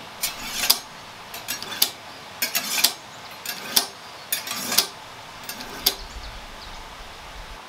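A kitchen knife drawn through a stand-up knife sharpener, six scraping strokes about a second apart, each ending in a sharp metallic click.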